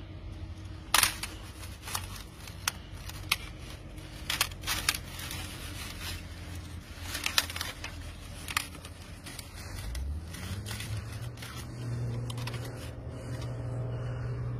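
Thin pond ice cracking and snapping as fingers press and break it: about ten sharp snaps over the first nine seconds, the loudest about a second in. A steady low hum runs underneath, rising in pitch and growing louder about ten seconds in.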